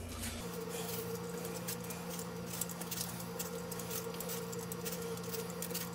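Vegetable peeler scraping the rough skin off a pear in a run of quick, light, irregular strokes, over a steady low hum that starts about half a second in.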